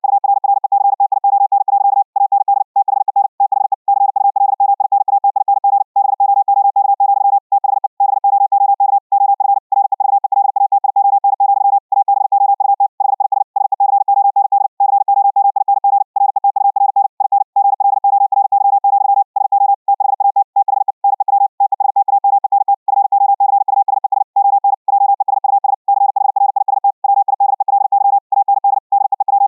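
High-speed Morse code (CW) at about 60 words per minute: a single steady-pitched tone keyed on and off in a fast, unbroken stream of dits and dahs, with short gaps between words. This is the audio as received back after Vorbis encoding and RTP transport over the internet.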